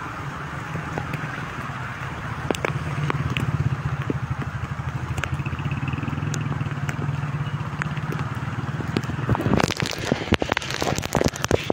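Rain hitting a vehicle's roof and windows over the steady low hum of the running vehicle, with scattered drops clicking; about nine and a half seconds in, the rain grows much heavier and denser.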